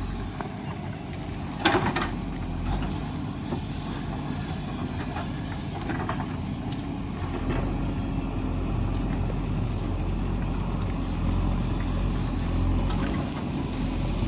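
JCB 3DX backhoe loader's diesel engine running steadily, with one sharp clank a couple of seconds in and a few fainter knocks later.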